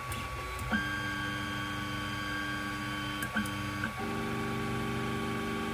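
Ender 3 Pro 3D printer's stepper motors whining through a series of moves as a print starts: a steady whine about a second in, a short one, then a buzzier one with more tones from about four seconds in, with small clicks between moves. A steady hum runs underneath.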